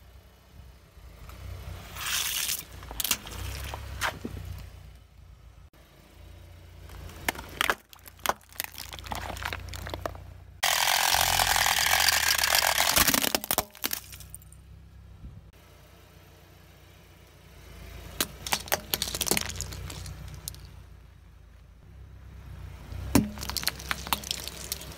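A car tyre rolling over and crushing plastic and rubber toys: several bouts of crackling and snapping plastic, with a loud hiss lasting about three seconds near the middle. Near the end, plastic building blocks crunch and scatter under the tyre, over the car's low hum.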